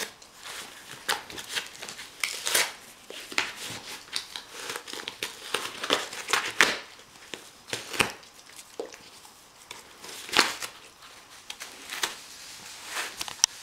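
Golden retriever chewing and tearing apart a thin cardboard box and paper: irregular crinkling and ripping, with a few louder rips spread through.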